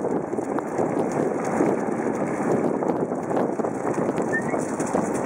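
Wheeled dog cart rolling over asphalt behind a team of trotting Alaskan Malamutes: a steady rumble of the wheels on the road, mixed with the dogs' footfalls.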